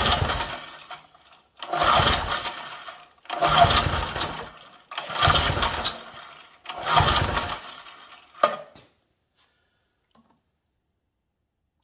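Small engine of a Troy-Bilt sickle mower cranked by its recoil pull-starter, five hard pulls in a row, each a second or so of cranking that does not catch and run. A sharp click follows about 8 seconds in, then the sound stops.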